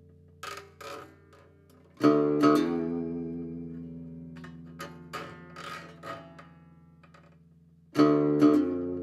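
Solo acoustic guitar, a Levin guitar from about 1930, playing a slow passage. A full strummed chord comes about two seconds in and rings out, a few single plucked notes follow, and another strummed chord comes near the end.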